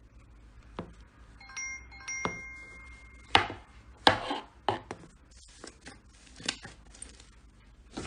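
Slime being pressed and squeezed by hand, giving a series of sharp, crackly pops. A brief chime-like ringing of two notes comes before them, about two seconds in.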